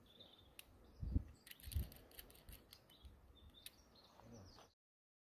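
Hands working a webbing hammock tree strap and carabiner: two low bumps and a run of small clicks, with birds chirping in the background. The sound cuts off abruptly near the end.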